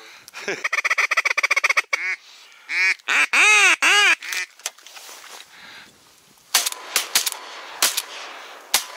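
Ducks quacking: a fast chatter of short calls, then a run of about six loud quacks. A few sharp clicks follow near the end.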